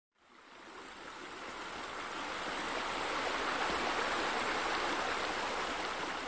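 Steady rush of running water, fading in over the first two seconds and then holding even.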